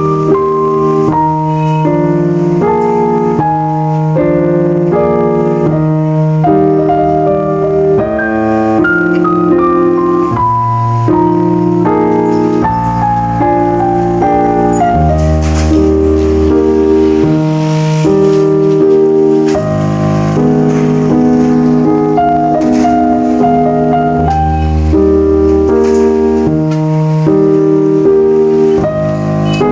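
Background music: a piano or electric keyboard melody with chords, moving in notes of about half a second.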